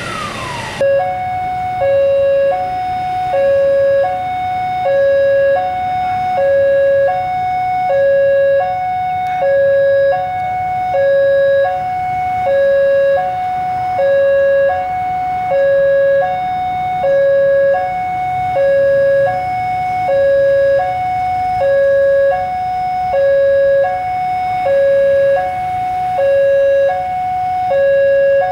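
Electronic two-tone warning alarm sounding steadily, alternating between a low and a high tone about once every 1.3 seconds. In the first second a falling tone cuts off abruptly.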